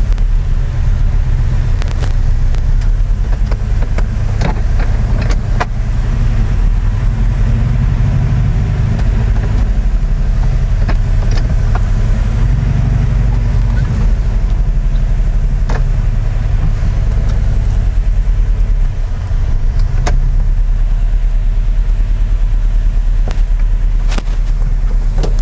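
Porsche 356B's rebuilt original air-cooled flat-four engine running as the car is driven, a steady low rumble that eases briefly about 19 seconds in.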